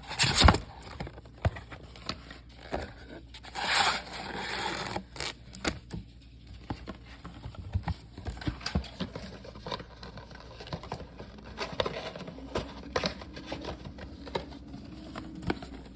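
A trading card box being opened and its packs handled. A sharp knock about half a second in, a tearing rip about four seconds in, then a run of light clicks and rustles of cardboard and wrapped packs.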